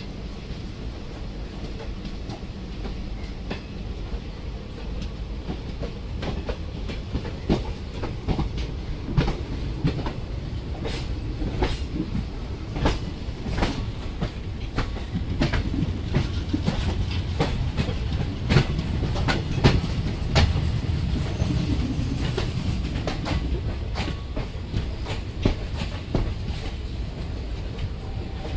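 Two Indian Railways express trains running side by side, heard from aboard. There is a steady rumble of coach wheels on rail, with many sharp, irregular clacks as the wheels pass over rail joints and points near the station approach.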